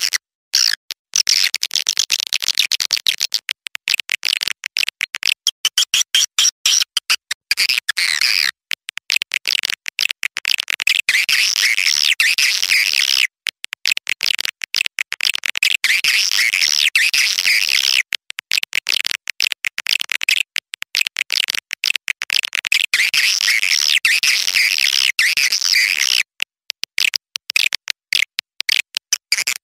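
Recorded calls of young swiftlets: dense high-pitched twittering chirps in runs broken by many brief gaps. This is a swiftlet lure call, played at swiftlet houses to draw the birds in.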